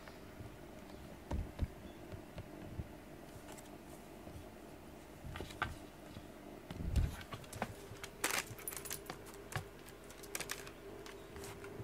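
Two cats play-fighting on a desk: dull thumps of bodies and paws, loudest about seven seconds in, among scattered clicks and rattles of things on the desk, including a keyboard pawed near the end.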